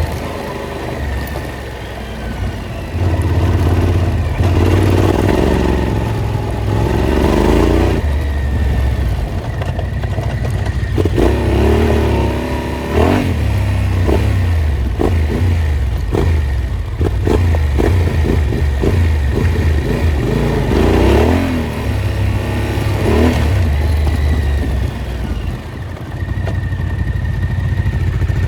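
Off-road motorcycle engine running and revving up and down again and again while riding a dirt trail, with a run of sharp clicks and knocks about halfway through.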